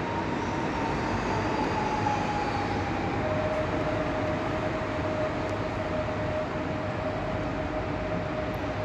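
Electric train running in the station: a steady rumble with a whine that slides down in pitch over the first three seconds, then holds at a lower pitch.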